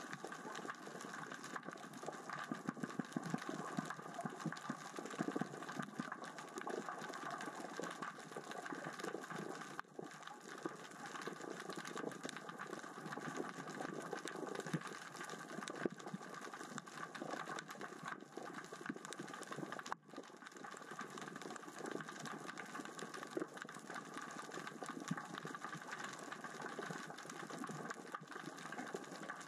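Underwater crackling near the sea floor: a dense, steady stream of fine clicks and ticks, which the diver attributes to small rocks rolling across the bottom with the current and tide.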